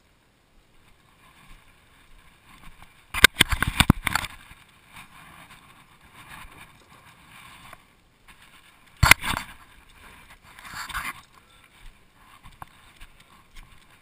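Sharp clattering knocks of gear being handled on fishing kayaks: a rattling burst of under a second a little over three seconds in, a single loud knock about nine seconds in, then a softer scuffing rustle.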